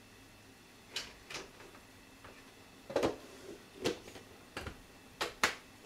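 Plastic food storage container being handled and shut: a series of sharp plastic clicks and snaps as the lid is pressed on and its clip-lock latches are closed, the loudest ones in the second half.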